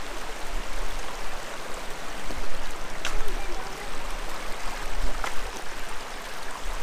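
Shallow creek water rushing and burbling over rocks in a steady hiss, with a couple of faint clicks.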